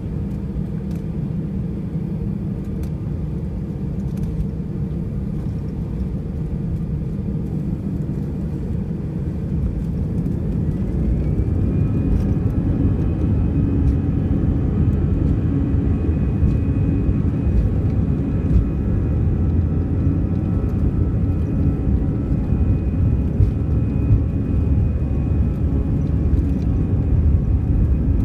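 Airbus A320 jet engines heard from inside the passenger cabin: a steady low rumble at first. About ten seconds in, a whine rises in pitch and then holds high while the rumble grows louder, as the engines spool up to takeoff thrust for the takeoff roll.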